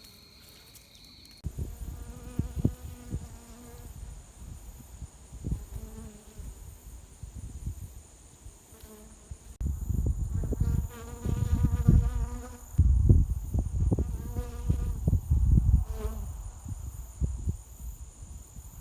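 Honeybees buzzing close past the microphone, coming and going, with a low rumble beneath. The buzz starts about a second and a half in.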